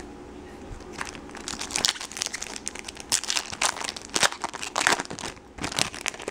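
Foil trading-card pack wrapper being torn open and crinkled by hand: a dense run of crackling that starts about a second in.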